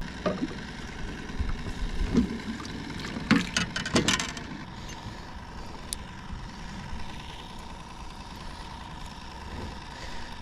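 Small boat's motor running steadily with a thin, steady whine. A quick cluster of clattering knocks comes about three to four seconds in.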